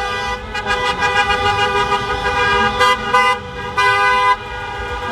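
Several car horns honking at once in celebration, held in long overlapping tones, with a few short louder blasts in the second half.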